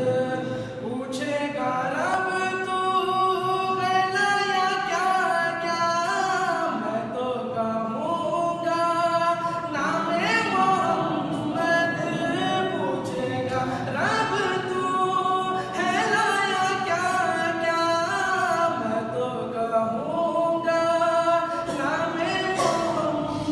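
Naat recitation sung a cappella, with no instruments: long held, gliding melodic notes.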